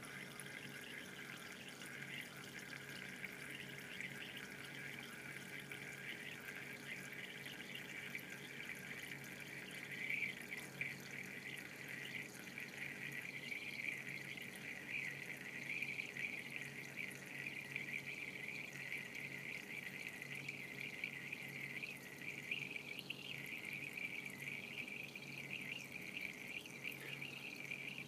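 Water trickling in a thin, steady stream from the open stopcock of a draining glass burette.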